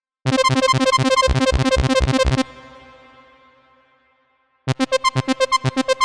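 GarageBand's Dopamine Lead synth patch played through the arpeggiator as fast, evenly repeating notes. The first run cuts off about two and a half seconds in and its tail fades away. A second run at a sixteenth-note rate starts near the end.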